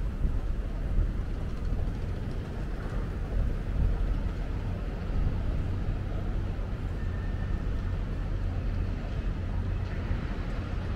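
Steady low rumble of city street traffic, with an engine hum holding a constant pitch.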